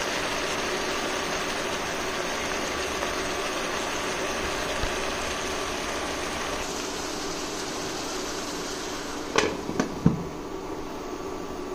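Pan of chopped taro stems cooking on a stove: a steady hiss with a low hum under it. A few sharp knocks come near the end.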